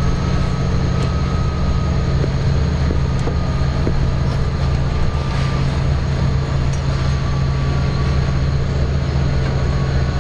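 Steady low drone inside a locomotive cab as the train departs, with a faint high whine running over it.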